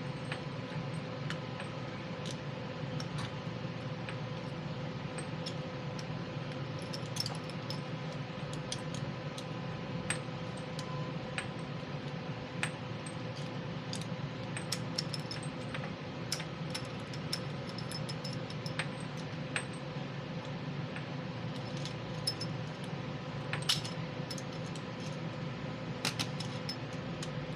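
Scattered light metallic clicks and clinks from handling tools and a metal hose fitting, over a steady hum with a few held tones.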